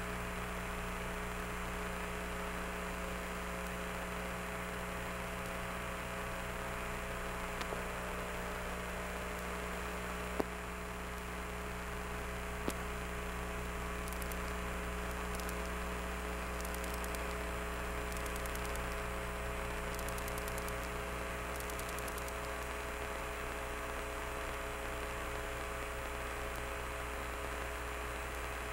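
Steady electrical hum with a layer of hiss, unchanging throughout, with two faint clicks near the middle.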